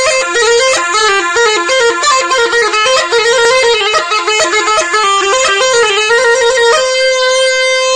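Neyanban, the southern Iranian bagpipe, playing a fast bandari melody in quick stepping, ornamented notes, then settling on one long held note about seven seconds in.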